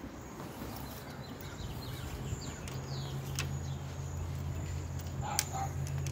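Birds chirping, over a steady low hum that comes in about two and a half seconds in and grows louder, with one sharp click near the end.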